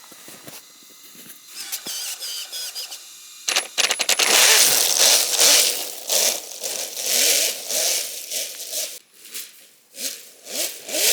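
Sensorless brushless motor of a 3D-printed RC snowmobile whining in several tones as it struggles to get started, the stutter of a sensorless setup. About three and a half seconds in it takes off, and the track churns through snow in loud rising and falling surges with short rising whines.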